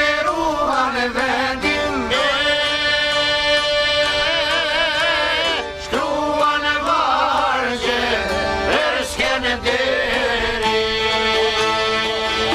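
Live Albanian folk music: a singer's wavering, held melody over accordion, çifteli lutes, violin and frame drum.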